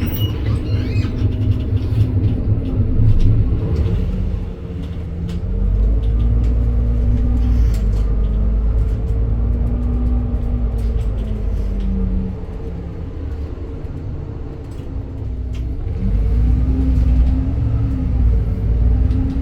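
Cabin sound of a 2021 Edison Motors Smart 110G city bus under way: its GX12P CNG engine and ZF Ecolife six-speed automatic running, with a whining pitch that rises and falls in arcs as the bus pulls away and shifts gears, over a steady low rumble. It eases off for a few seconds past the middle and picks up again near the end.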